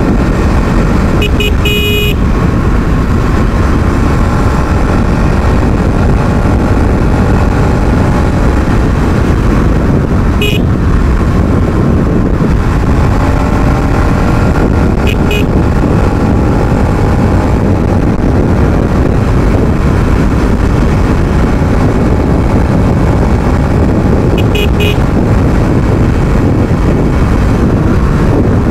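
Bajaj Pulsar NS 200's single-cylinder engine running under hard riding, with a continuous exhaust note. Short horn beeps sound over it: a quick run of beeps about a second and a half in, then single or double beeps at around 10, 15 and 25 seconds.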